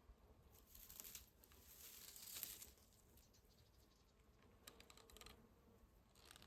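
Faint rustling and crackling of rosemary sprigs being picked by hand, one longer stretch near the start and a shorter one about five seconds in.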